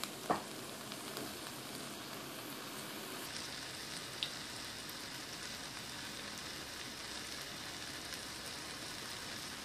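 Seasoned broth bubbling around rice stick noodles in a nonstick wok as it comes to a boil: a steady, faint sizzling hiss, with a light tap just after the start.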